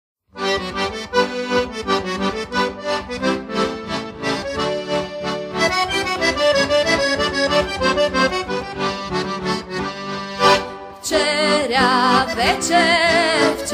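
Slovak folk tune played on heligónka, the diatonic button accordion, a lively instrumental introduction. About ten seconds in it breaks off on a sharp accent, then starts again with a wavering, trembling sound.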